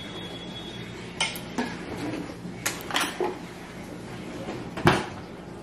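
Scattered light knocks and clinks of a spoon and a silicone suction plate against a plastic highchair tray, with one sharper knock near the end.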